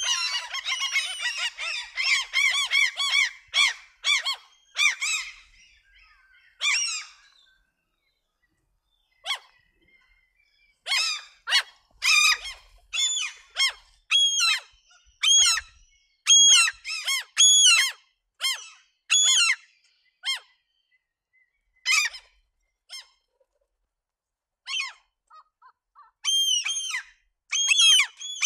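Birds calling: a dense chorus of many short, overlapping calls for the first six or seven seconds, then single calls repeating about once a second with short silent gaps between them.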